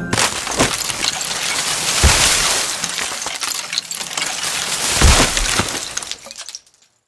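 Crash sound effect at the countdown's end, the timer bomb going off: a loud, dense shattering and clattering like breaking glass and falling debris, with heavy thumps about two and five seconds in, fading out near the end.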